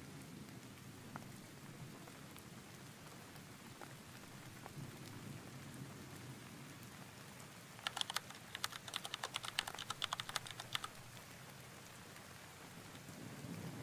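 Faint steady rain from a thunderstorm ambience track, with about three seconds of rapid, crackly ticking starting about eight seconds in.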